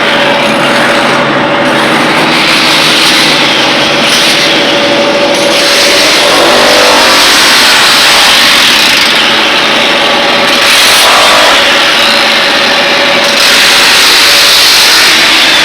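A powered machine running loudly and continuously, a dense hiss with a faint steady hum through it that breaks off briefly twice. It sounds like the motor of a tool used in concrete injection-grouting work.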